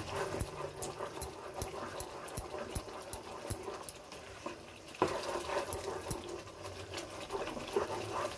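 A plastic spatula stirring and scraping thick karahi gravy in a nonstick wok, with light clicks about two to three a second over the sizzle and bubbling of the masala frying in oil. It is at the bhuna stage, where the oil rises to the surface of the masala to show that it is well fried.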